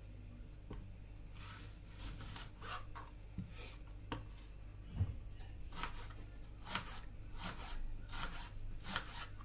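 Kitchen handling sounds: short, irregular scrapes and rustles, about two a second and more frequent in the second half, over a steady low hum.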